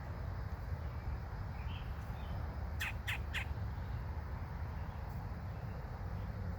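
Young woodpecker calling: three short calls in quick succession, about a third of a second apart, a few seconds in, with two faint chirps just before, over a steady low rumble.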